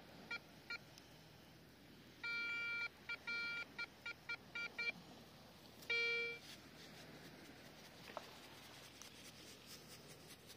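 Metal detector sounding its target tone. There are two short beeps, then a longer beep about two seconds in, a run of quick broken beeps, and one loud beep about six seconds in as it passes over a buried target.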